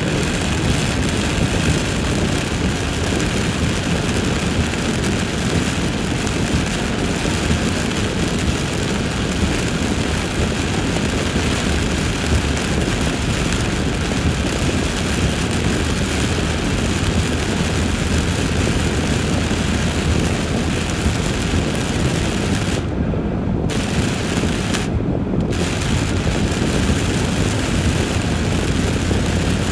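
Heavy rain drumming on a moving car's roof and windshield, together with the hiss of tyres on the flooded road, heard from inside the car. The sound is a loud, steady rush. Twice near the end its higher hiss cuts out for under a second while the low rumble goes on.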